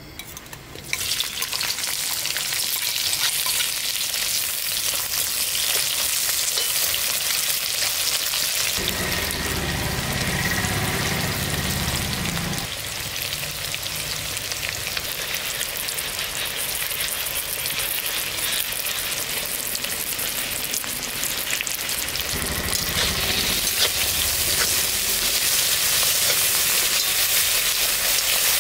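Sliced onions, garlic, ginger and green chillies sizzling hard in hot oil in a wok, starting suddenly about a second in, with the scrape and clink of a slotted metal spoon stirring them.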